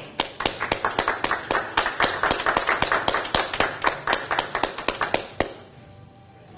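Hand clapping from a few people: sharp, irregular claps that stop after about five and a half seconds.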